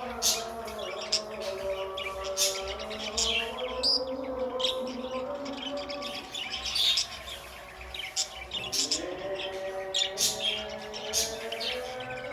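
Budgies chirping and chattering in quick, short calls throughout, over a low sustained tone that shifts in pitch now and then.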